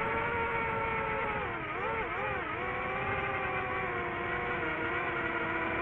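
DJI FPV quadcopter's motors and Master Airscrew propellers whining in flight. The pitch dips and wavers briefly about two seconds in as the throttle changes, then holds steady.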